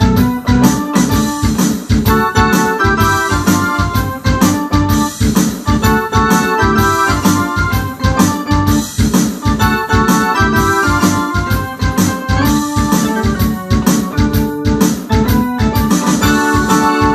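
Ensoniq SD-1 synthesizer keyboard playing a rock keyboard part in an organ and electric-piano tone: steady rhythmic chords with a shifting line of notes above them.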